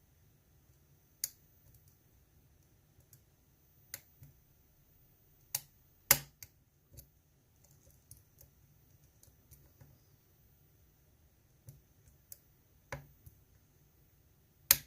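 Lock pick and tension tool working the pins of a GEGE euro cylinder: scattered sharp clicks a second or more apart, the loudest about six seconds in and another near the end, with faint ticks between.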